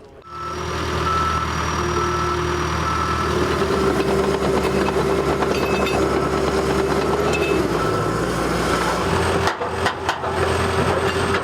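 A heavy vehicle's engine running steadily, with a short high beep sounding on and off.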